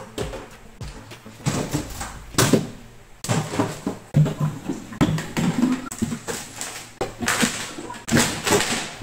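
Laminated particleboard cabinet parts being handled: a drawer slid out and panels moved and set down, giving a quick run of wooden knocks, bumps and short scrapes.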